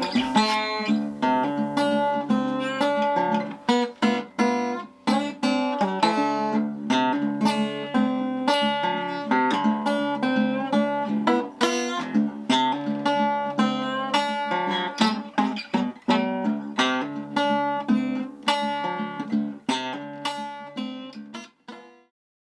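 Acoustic guitar playing a run of plucked notes and strums, fading out near the end.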